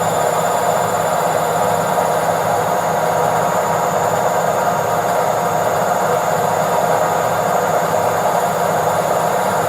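Washing machine on its spin cycle: a steady, even whirring drone with a constant hum.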